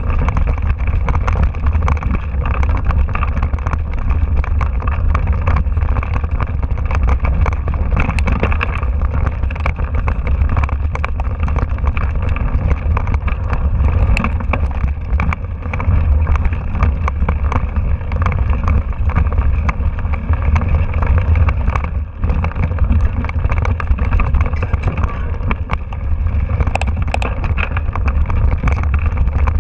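Mountain bike riding fast over a rocky dirt trail, heard through a handlebar-mounted camera: a steady low rumble of wind and vibration with continual rattling and clatter from the bike jolting over stones.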